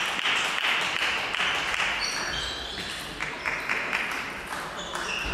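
Spectators clapping after a table tennis rally, dying away about two seconds in, followed by scattered clicks of table tennis balls in the hall.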